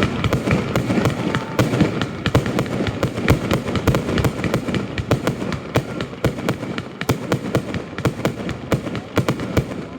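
Fireworks display: a dense, continuous barrage of bangs and crackling shell bursts, many cracks a second overlapping without pause.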